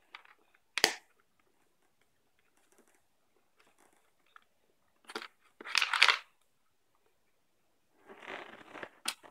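Hard plastic toy parts being handled and pushed together: a sharp click about a second in, a louder clatter about six seconds in, and a rustle with a click near the end.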